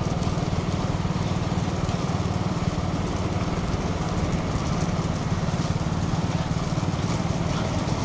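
A motorcycle engine running steadily under way: an even, fast-pulsing drone that holds level throughout.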